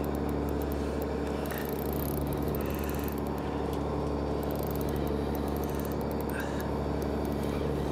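Fishing boat's engine running steadily: a constant low drone with several fixed hum tones.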